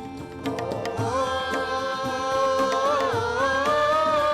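Hindi song with a solo voice holding one long, slightly wavering sung note from about a second in, over instrumental accompaniment with drum beats.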